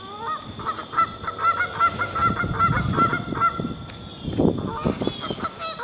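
Canada geese honking: a quick run of repeated honks, then a few more scattered honks near the end.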